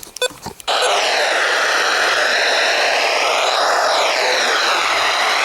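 Loud steady hiss of radio static that starts abruptly under a second in, just after a short beep, its tone slowly sweeping like a whoosh, as on a weather radio receiver between broadcasts.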